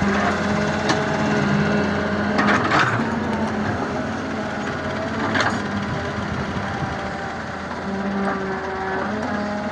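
A machine's engine running steadily, its pitch shifting a little, with a clattering knock twice, a few seconds in and again about halfway through.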